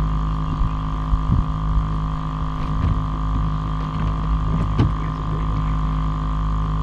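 Electric bow-mount trolling motor on a bass boat running at a steady hum, with a few short low knocks.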